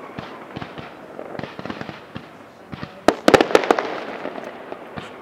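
Fireworks display: a running crackle of small sharp reports, with a cluster of louder bangs a little after three seconds in.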